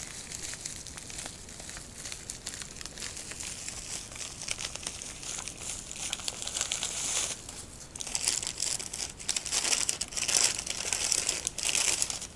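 Pink plastic bubble wrap and brown paper wrapping crinkling and rustling as they are pulled off a model train locomotive by hand. The crackling gets louder in the second half.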